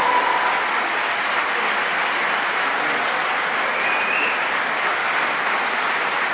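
Concert audience applauding steadily, a large crowd clapping.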